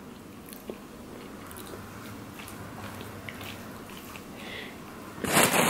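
Quiet chewing with faint clicks of a metal fork picking at food in a foam takeout container. About five seconds in, a loud crinkling starts.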